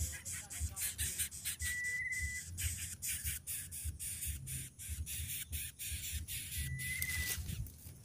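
Dry twigs and leaves of a nest crackling and rustling as a greater coucal rummages and pecks in it, with two brief, thin, wavering whistle-like notes, one about two seconds in and one near the end.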